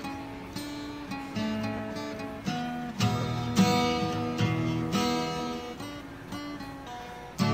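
Background music: acoustic guitar picking and strumming chords, each chord ringing and dying away before the next.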